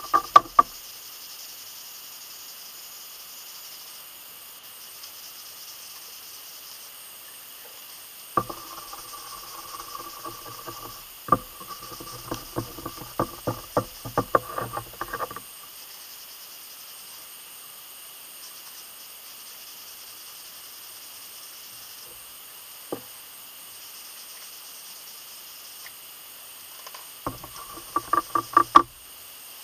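Blue paper shop towel buffing a black-dyed vegetable-tanned leather sheath, wiping off the dye residue left on the leather. It comes in spells of quick back-and-forth rubbing strokes: briefly at the start, for about seven seconds from eight seconds in, and again near the end. A steady faint hiss lies underneath.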